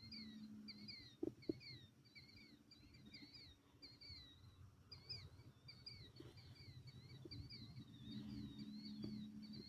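A bird chirping faintly and continually, two or three short rising-and-falling chirps a second, over a low hum, with a couple of soft knocks about a second in.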